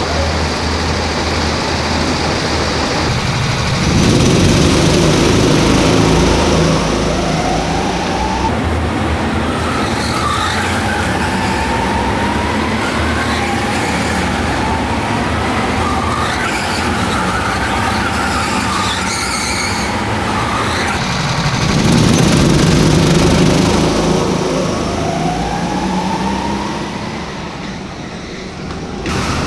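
Go-kart engines running on a track, their pitch rising and falling as the karts speed up and brake. Two louder passes come about 4 and 22 seconds in.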